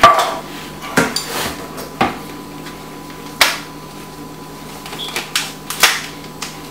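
Kitchen handling sounds: a spoon knocking and clinking in a stainless steel mixing bowl and a plastic food container being handled, a string of separate sharp knocks and taps about a second apart. A faint steady hum runs underneath.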